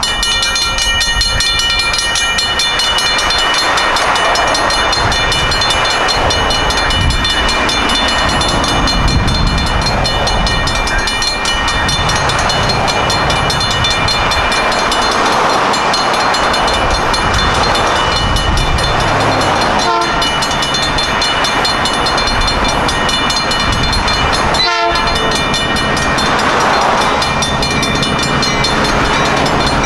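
Mechanical crossing bells ringing rapidly and without pause, with the rumble of a diesel-led passenger train passing over the crossing beneath them.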